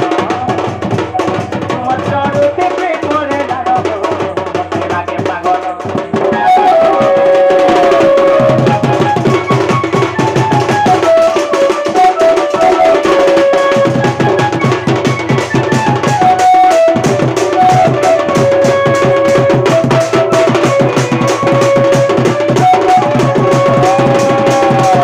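Live Danda dance-drama accompaniment: drums played in a fast, dense rhythm under a melody line that holds and bends its notes. The music grows fuller and louder about six seconds in.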